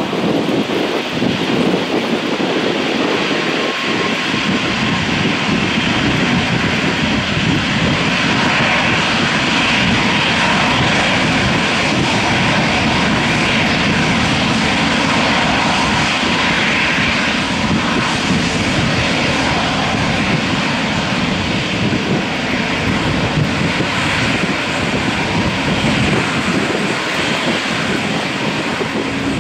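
Airbus A220-300's Pratt & Whitney PW1500G geared turbofan engines running at low taxi thrust as the airliner taxis past: a steady jet whine and rush that grows brighter as it comes closest, about midway, then eases.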